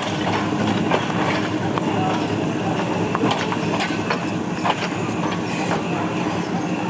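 Passenger train at a station platform: a steady low engine rumble with scattered short knocks and clanks, and people's voices around it.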